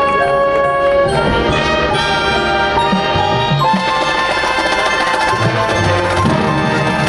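High school marching band playing: brass section sustaining chords that change twice, with drums underneath.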